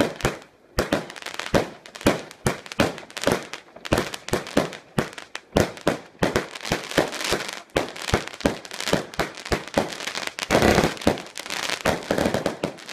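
Fireworks going off: an irregular run of sharp bangs and crackling pops, several a second, bunching into a denser volley near the end.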